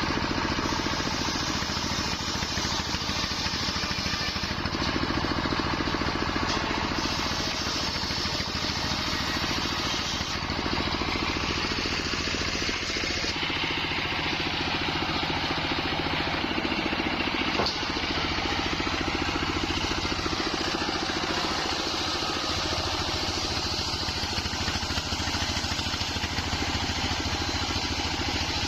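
Engine-driven sawmill circular saw with a wide blade running steadily as it cuts nyampoh logs: a constant engine hum under a hiss from the blade that swells and eases every few seconds.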